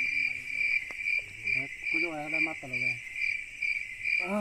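Crickets chirping steadily at night, a high, even pulse about twice a second.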